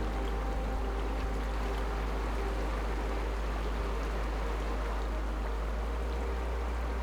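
Small mountain creek flowing: a steady, even rush of water.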